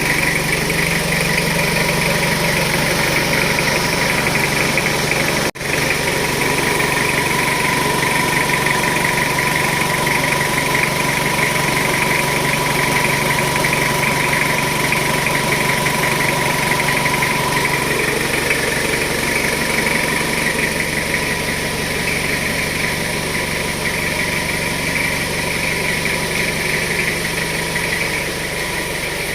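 Jeep Wrangler engine idling steadily, with a constant high hum running over it. The sound cuts out for an instant about five and a half seconds in.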